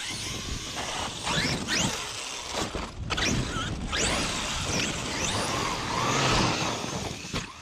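Traxxas XRT's Hobbystar 5692 1120kv brushless motor whining in several sharp rising sweeps as the throttle is punched, over a steady rush of tyres tearing through loose dirt.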